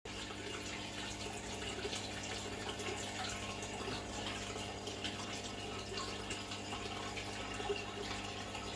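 Aquarium water trickling and bubbling steadily, with many small splashes, over a low steady hum.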